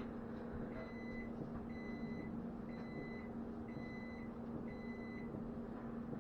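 Microwave oven's end-of-cycle beeps: five even electronic beeps about a second apart, over a steady low hum.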